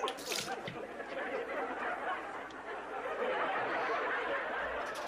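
Tap water running steadily into a bathroom sink.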